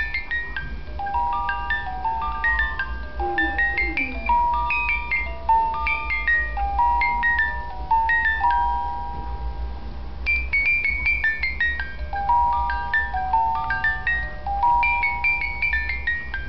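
Musical baby mobile toy playing a simple chiming lullaby melody of separate ringing notes; the tune stops briefly about ten seconds in and starts over.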